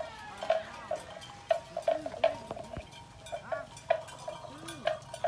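Bell on a grazing water buffalo clonking irregularly, about two hollow knocks a second, as the animal moves.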